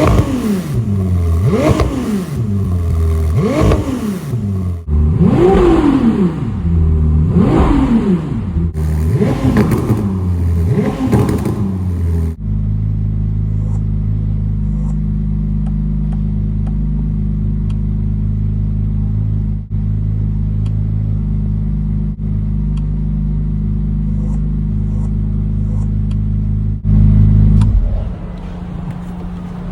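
Ferrari 296 GTB's twin-turbo V6 revved in place about seven times in quick succession, each rev rising and falling in pitch, then settling into a steady idle. Near the end it swells briefly louder, then drops away.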